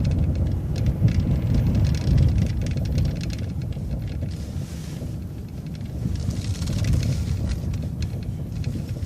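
Transit bus running, heard from inside: a steady low engine and road rumble as it drives along.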